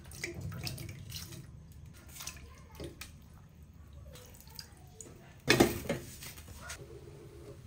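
Ingredients dropped from a bowl into a pot of water, with small splashes and clinks. About five and a half seconds in, a glass pot lid is set down on the metal pot with a loud clatter.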